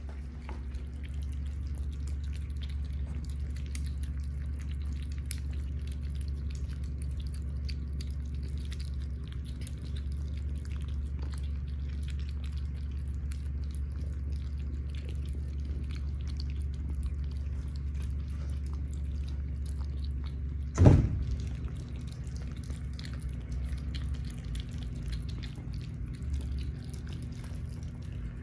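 Kittens eating wet cat food off plates: soft, wet smacking and chewing clicks over a steady low hum, with one short thump about two-thirds of the way through.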